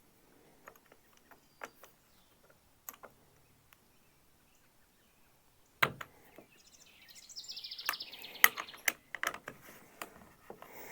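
Scattered clicks and knocks of a battery pole saw being handled while its stretched chain is tightened, with a louder knock about six seconds in and a cluster of knocks near the end. A short high buzzing rattle comes in around seven seconds.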